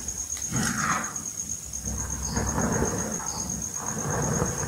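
Hands crushing and crumbling reformed gym chalk balls into loose chalk powder, in three gritty, powdery squeezes. A steady high-pitched whine runs underneath.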